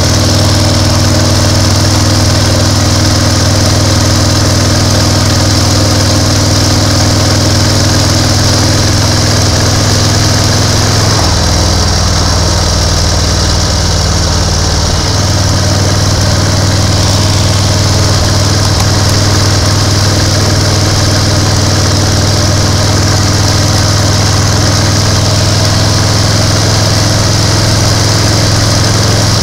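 1930 BSA 770 cc V-twin motorcycle engine running steadily on the road. Its note drops lower about eleven seconds in and picks up again about four seconds later.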